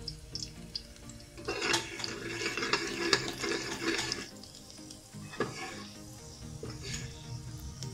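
Ground turmeric sizzling in hot oil and chopped garlic while a steel ladle stirs and scrapes the bottom of an aluminium pressure cooker for about three seconds, followed by a few sharp clinks of the ladle against the pot.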